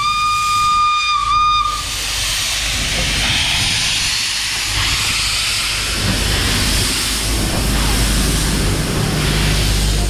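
Steam locomotive whistle sounding one steady tone that cuts off about two seconds in, followed by a loud, steady hiss of escaping steam over a low rumble.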